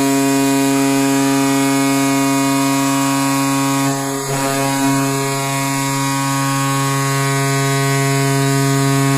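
Recorded NHL-style arena goal horn played for a goal: one long, steady, low blast with a dip about four seconds in.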